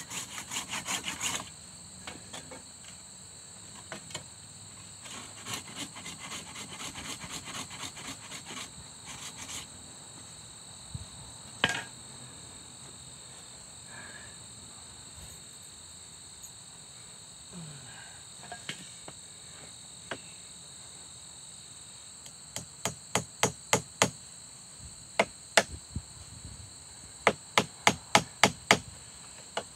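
Hand-tool work on a wooden pole wall: runs of quick scraping strokes early on, then three runs of sharp hammer blows, about two a second, near the end, as nails are driven into the poles. A steady high insect buzz runs underneath.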